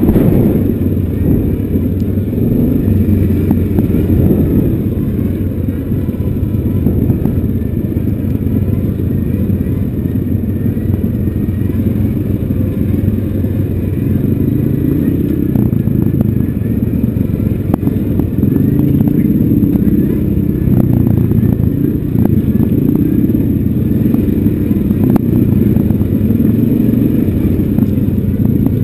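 Yamaha single-cylinder ATV engine running steadily while the quad rides over a rough, rocky trail, with scattered knocks and clatter from the ground and the machine.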